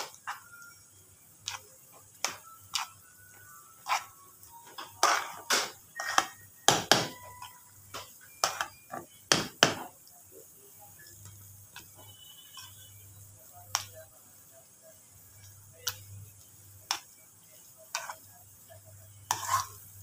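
Metal spoon stirring thick sticky rice in a stainless steel pan, clinking and scraping against the pan in irregular clicks and knocks. The clicks come thick and fast for a few seconds around the middle, then thin out to occasional taps. A faint low hum runs underneath.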